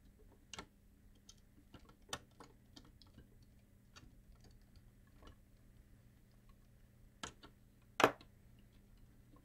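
Scattered small clicks and taps of a screwdriver and plastic parts as the CD3000's CD mechanism and housing are handled and fitted back together, with a single sharper knock near the end.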